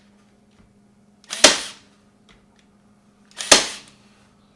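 Cordless Milwaukee battery-powered stapler firing T50 staples through fabric into a wooden frame: two sharp shots about two seconds apart.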